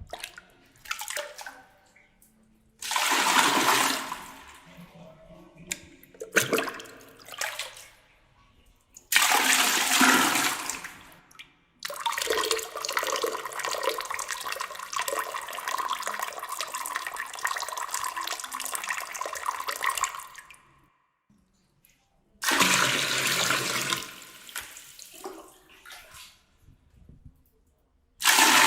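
A string of DJ sound-effect samples: separate bursts of rushing, whooshing noise with short silences between them. The longest burst holds steady for about eight seconds in the middle.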